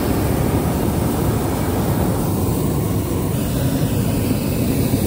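Hot air balloon's propane burner firing: a loud, steady rushing noise with no break.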